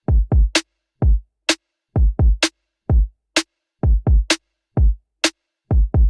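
Background music: an electronic drum-machine beat of deep kick drums that drop in pitch, with a sharp snare-like hit about once a second and silence between the hits.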